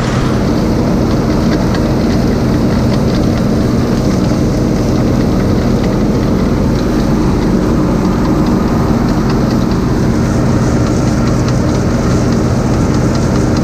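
A vehicle engine running steadily at an even speed, with a constant low hum and light rattling over it.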